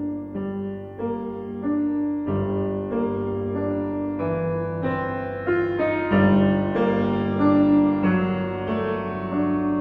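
Background music: a gentle piano melody over sustained low bass notes.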